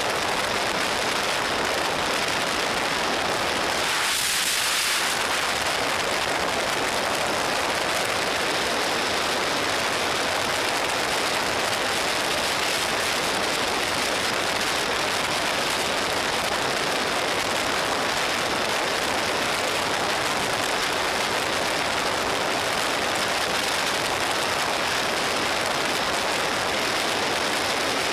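Steady wind rush over a motorcycle-mounted camera's microphone at highway speed, with the bike's engine buried beneath it. It turns briefly hissier about four seconds in.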